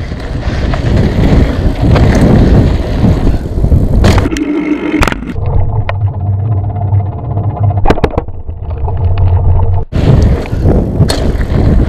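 Mountain bike riding on a dirt trail heard from a GoPro: wind rushing over the microphone and the tyres and bike rattling over the ground. A few sharp knocks come about four, five and eight seconds in.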